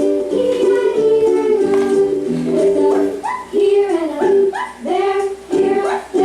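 Upbeat children's background music with plucked strings and a singing voice.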